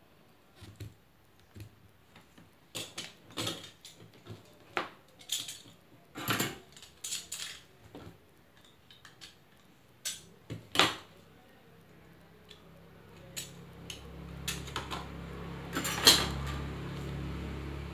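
Metal hand tools clinking and knocking on a workbench as they are picked up and set down, in irregular clicks with a sharp knock near the end. From about two-thirds of the way in, a steady low hum rises underneath.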